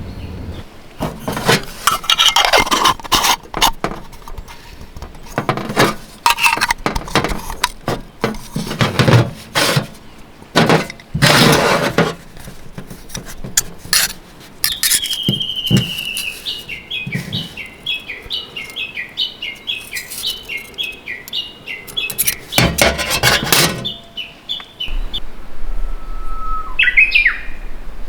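A bird singing: one long descending whistle, then a quick run of repeated short chirping notes lasting several seconds, with another brief call near the end. Irregular knocks and rustles of gear being handled come and go around it.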